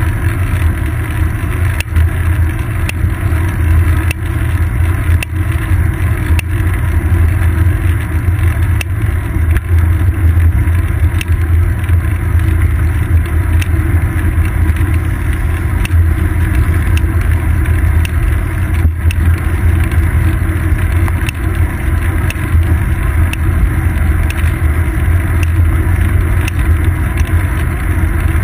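Steady low rumble of road vibration and wind picked up by a seat-post-mounted GoPro Hero 2 on a moving bicycle, with scattered small clicks and knocks from bumps in the pavement.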